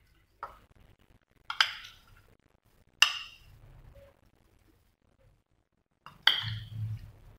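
Metal spoon clinking against a glass baking dish while spreading minced meat over a lasagne layer: four sharp clinks, each ringing briefly, the last three louder.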